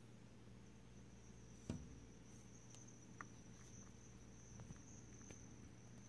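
Near silence: faint room tone with a steady thin high-pitched tone and a low hum, broken by one soft knock a little under two seconds in and a few faint ticks.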